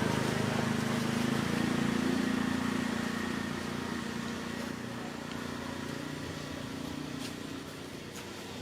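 A motor engine running with a steady low hum that gradually fades away over several seconds.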